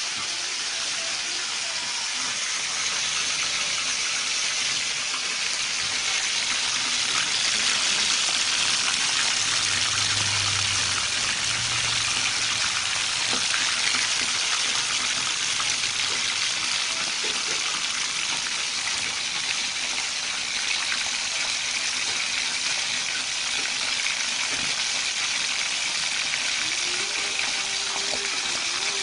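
Whole catfish deep-frying in hot oil in a wok, the oil giving a steady sizzle.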